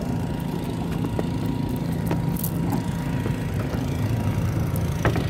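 Small wooden boat's engine idling with a steady low hum, with a few short knocks about two seconds in and near the end.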